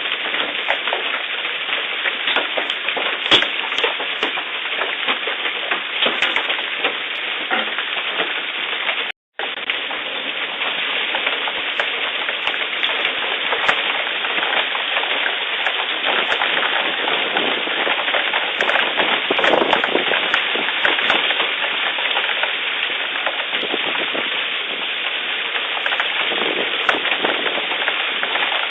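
Hailstorm with rain: a dense, steady patter with frequent sharp cracks of large hailstones striking hard surfaces. The sound cuts out for a split second about nine seconds in.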